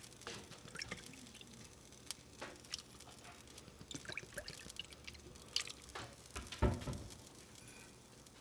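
Lemon juice squirted from a plastic squeeze bottle into a small saucepan of melted butter, with soft drips and light clicks. There is a dull thump about two-thirds of the way through.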